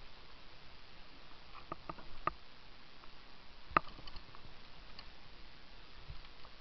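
A few light clicks and taps over a faint steady hiss: a quick run of three or four about two seconds in, then one sharper click near the four-second mark.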